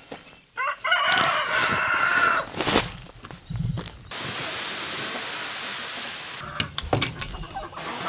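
A rooster crowing once, a long call of about two seconds near the start. It is followed by a steady rushing noise and a few sharp knocks near the end.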